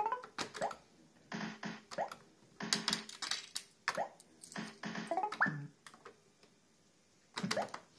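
Barcrest 'Party Animal' fruit machine being nudged: a quick series of clicks, many with a short rising electronic bleep, one for each press of the nudge button as the reels step. About a dozen come in the first five and a half seconds, then a pause and another cluster near the end.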